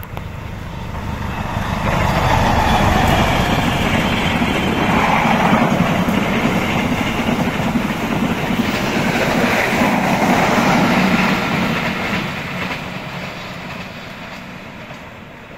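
Diesel-electric locomotive and a long string of stainless-steel passenger coaches passing at speed on the rails. The rolling rumble of wheels and engine swells over the first couple of seconds, holds steady while the coaches rush by, then fades as the train runs away.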